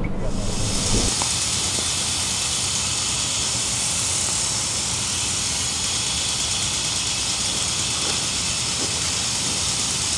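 A steady, even hiss that cuts in suddenly and holds at one level without change.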